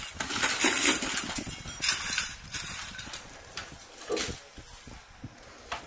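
Footsteps crunching and scraping over burned debris, ash and scrap metal, in irregular crackling bursts that are loudest in the first couple of seconds.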